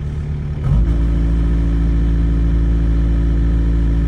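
An engine running steadily that steps up to a louder, fuller run less than a second in and then holds even.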